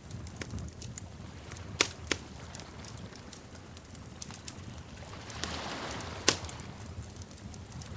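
Wood fire crackling in a fireplace: irregular sharp pops and snaps over a low, steady roar of the flames, with the loudest pops a little under two seconds in, just after two seconds, and a little after six seconds, and a brief rush of hiss just before the last one.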